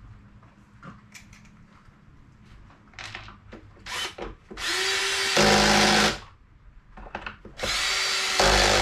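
A power drill running in two short bursts, the first about one and a half seconds long about halfway through, the second shorter near the end. Faint clicks come before them.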